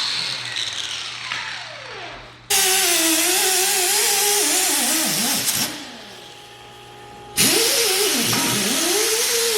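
A handheld power grinder winding down with a falling whine, then cutting in twice with a loud hiss whose motor pitch sags sharply and recovers as the disc is pressed into metal.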